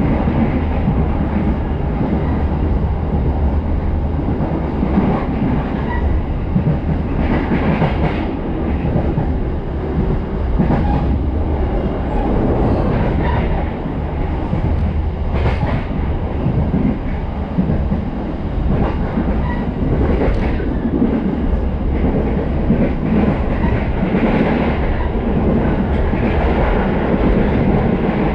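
Passenger train running along the track, heard from on board: a steady rumble of wheels and carriage with occasional sharp clicks and knocks from the rails.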